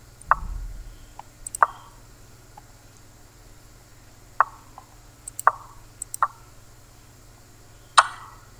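An online chess site's move sound effects: six short wooden clicks, one for each move of a quick blitz exchange, with a few faint computer-mouse clicks between them.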